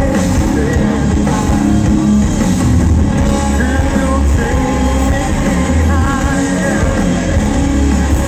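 Live rock band playing loud and steady, with electric guitars, bass and drums under a male lead vocal, heard through the concert sound system from within the crowd.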